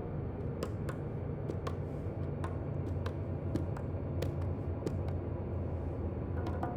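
Sparse, light percussive taps over a steady low hum, a quiet stretch of hand-percussion accompaniment.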